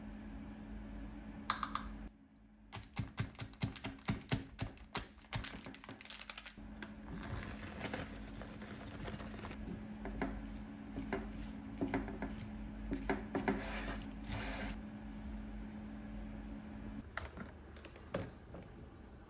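A metal spoon tossing julienned carrots and chopped walnuts in a glass container: a quick run of light clicks and taps. A steady low hum runs underneath and stops near the end.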